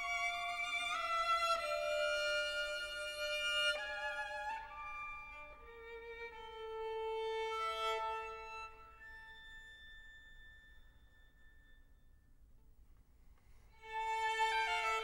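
Background music: a violin playing slow, sustained notes that fade to a quiet stretch and swell again near the end.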